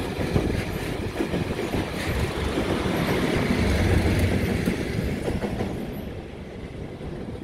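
A diesel-hauled engineering train passing: the last loaded hopper wagons clatter over the rail joints, then the rear locomotive, Class 97/3 97304 (a rebuilt Class 37 with an English Electric V12 diesel), rumbles past close by about four seconds in. The sound then fades steadily as the train moves away.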